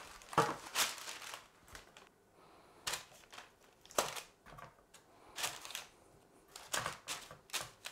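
Baking parchment rustling and crinkling on a metal baking tray as dough buns are set down on it, with irregular short rustles and soft taps.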